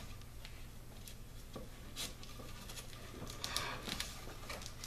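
Faint rustling and light ticks of a leather cord and paracord being handled and threaded through the wraps on a wooden bow handle, over a low steady hum.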